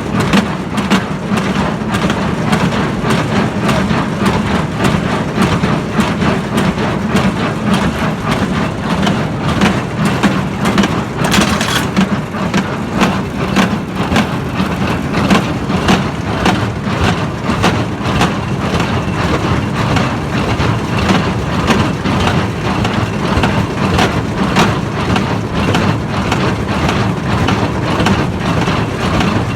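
Baler running behind a tractor: a steady engine drone with the baler's mechanism knocking in a fast, regular rhythm, working normally just after a repair. A brief louder burst of noise comes about eleven seconds in.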